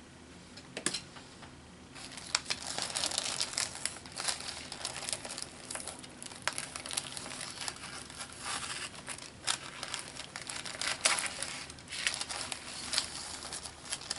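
Wax paper crinkling and crackling as it is handled and pulled away from painted paper pages it has stuck to. After a single click it starts about two seconds in and goes on as a dense run of small crackles.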